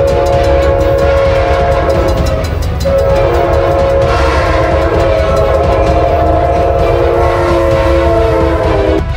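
Locomotive air horn sounding two long blasts, a steady multi-note chord with a short break about three seconds in, over the low rumble of the running train.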